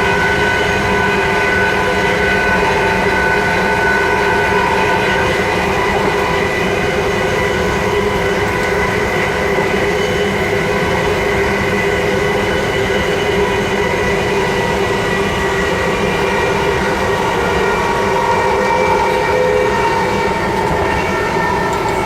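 Class 357 electric multiple unit running at a steady speed, heard from between the carriages: a continuous rail rumble with several steady whining tones over it.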